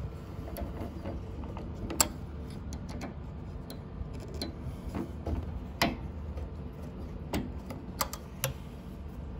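Hex key working the clamp bolts of a Supco piercing valve on a copper refrigerator line: scattered sharp metallic clicks and ticks over a low steady hum.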